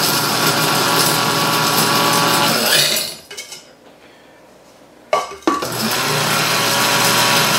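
Cuisinart electric blade spice and nut grinder grinding peppercorns and rosemary leaves in pulses: a steady whirring motor that winds down about three seconds in, a pause with a few light clicks from the lid, then whirring again from about five and a half seconds in.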